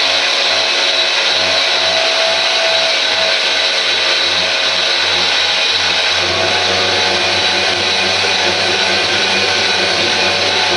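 Handheld power tool with a wire brush running steadily, scouring paint off steel brackets. The motor's low hum shifts about six seconds in, as the load on the brush changes.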